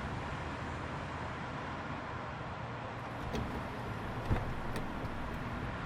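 Car running with a steady low rumble, with a few sharp clicks and a knock starting a little past the middle.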